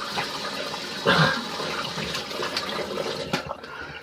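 Tap water running and splashing into a sink, with one louder splash about a second in; the running water fades out after about three and a half seconds.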